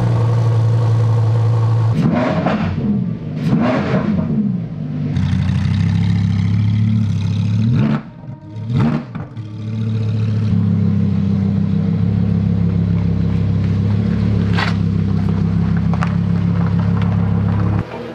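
Lamborghini Huracán Evo's naturally aspirated V10 idling, blipped sharply several times about two to four seconds in and again around eight to nine seconds in, revs rising and falling quickly before settling back to a steady idle.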